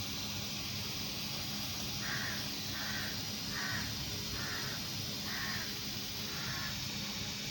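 A crow cawing six times in a row, about one caw every second, starting about two seconds in, over a steady hiss and a low hum.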